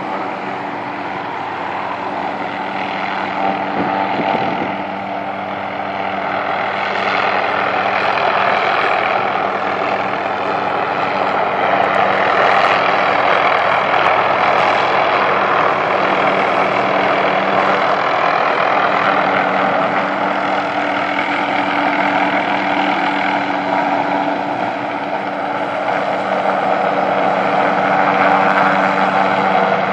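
Light helicopter flying low with a sling load on a long line, its engine and rotor running steadily with two steady low tones, growing a little louder and softer as it moves.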